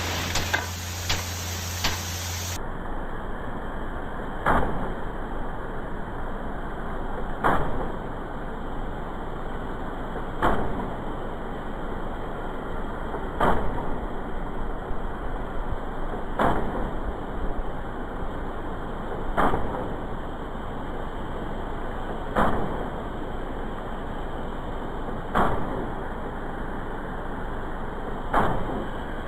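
Rain-gun irrigation sprinkler: a steady hiss of spray broken about every three seconds by a sharp stroke as the sprinkler's swing arm strikes the water jet, stepping the gun around.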